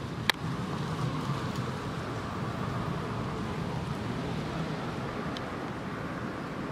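Steady outdoor background noise, a low rumble with a faint hiss, broken by one sharp click just after the start.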